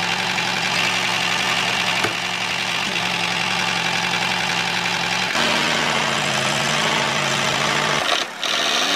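Steady engine-like running sound of a toy model tractor. It changes abruptly about five seconds in and dips briefly near the end.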